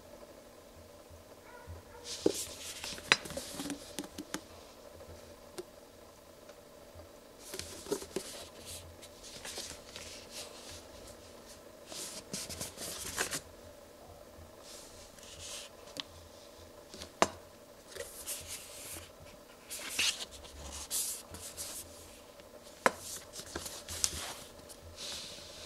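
Hands handling and turning a plastic engine-oil bottle: scattered scrapes and rustles of fingers on the plastic, with a few sharp clicks.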